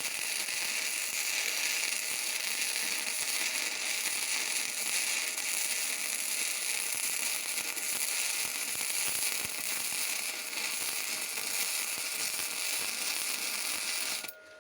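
Stick (MMA) welding arc from a GeHOCK MMA 120 welder: a steady, dense crackling and sizzling as the electrode burns. The arc breaks off suddenly near the end.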